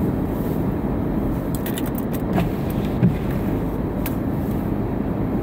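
Car cabin noise while driving: a steady low rumble of tyres and engine, with a few short clicks about two seconds in and again near four seconds.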